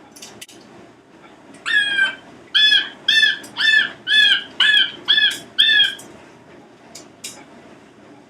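Congo African grey parrot calling: one longer call, then a run of seven short, identical pitched calls at about two a second, followed by a couple of brief clicks.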